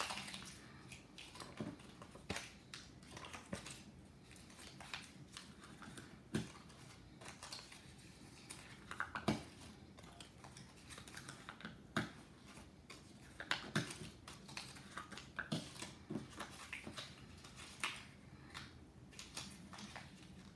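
Small squares of paper being picked up, shuffled and set down on a tabletop: irregular light taps and paper rustles, one every second or so.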